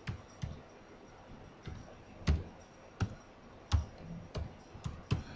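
Computer keyboard keys pressed one at a time: about ten separate clicks, slow and unevenly spaced, as a word is typed letter by letter.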